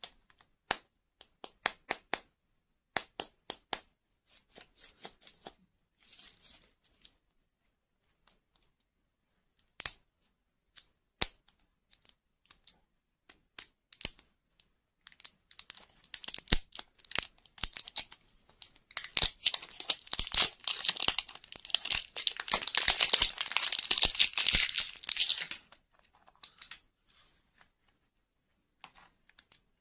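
Printed plastic wrapper being crinkled and peeled off a plastic lollipop toy ball by hand, with scattered sharp clicks and taps of fingers on the plastic shell. In the second half the crinkling and tearing becomes dense and continuous for about ten seconds, then stops.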